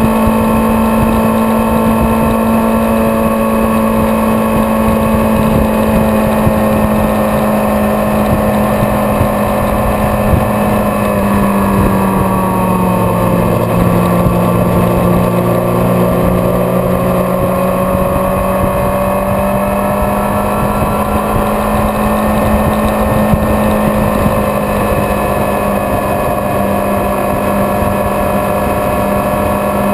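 Vehicle engine and road noise at steady highway cruising speed: a constant drone whose pitch sags slightly about eleven seconds in and slowly climbs back.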